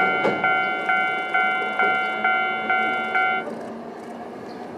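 Japanese railway level-crossing warning bell ringing its repeated electronic clang, about two strikes a second, then stopping about three and a half seconds in as the tram clears, leaving the faint running of the departing tram on the rails.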